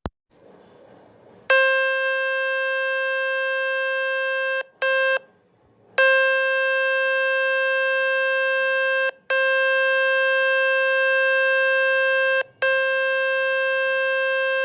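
A smartphone speaker playing a speaker-cleaning tone meant to shake dust and water out of it: a loud, steady, buzzy tone at one pitch. It comes in four stretches of about three seconds and one short blip, with brief gaps between. A sharp tap sounds at the very start.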